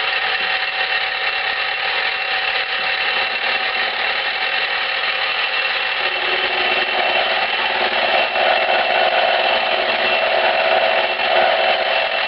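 Milling machine running with an end mill taking a light cut along a lathe gib: a steady motor whine with cutting noise. The cutting sound grows stronger about halfway through.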